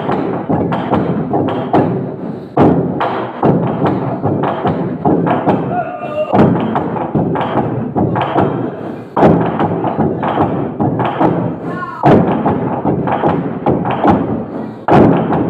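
Naga log drum, a hollowed tree trunk, beaten with wooden sticks in a fast, continuous rhythm of heavy thuds with occasional louder accented strokes. A voice calls out briefly about six seconds in and again about twelve seconds in.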